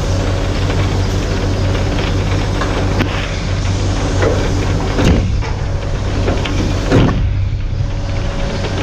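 Truck on the move: a steady low engine drone with road noise, and two knocks about five and seven seconds in.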